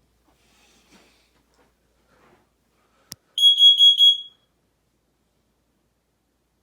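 A sharp click about three seconds in, then a smoke alarm's high-pitched horn sounds a quick run of about five beeps lasting under a second and cuts off.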